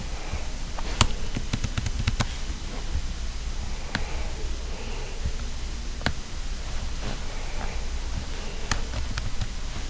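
Sharp computer clicks over a steady hiss: a quick run of several clicks about a second in, then single clicks every couple of seconds.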